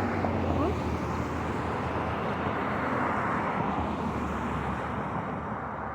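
A vehicle passing: a steady rushing noise with no clear pitch that swells about three seconds in and fades near the end.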